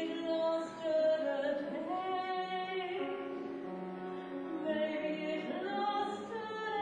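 Woman singing in an operatic style through a microphone, holding long notes with vibrato, with grand piano accompaniment.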